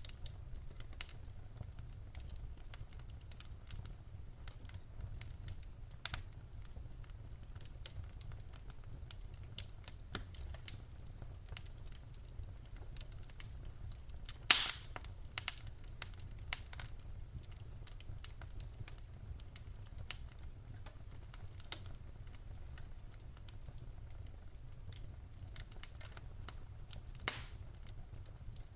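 Wood fire crackling and popping: irregular sharp snaps from burning logs, the loudest cluster of pops about halfway through, over a steady low rumble of the flames.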